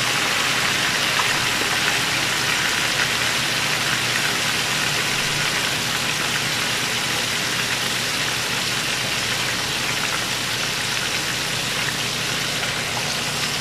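Unbreaded marinated chicken pieces frying in hot oil in a pan: a steady sizzle with a few scattered pops from the wet marinade spitting in the oil.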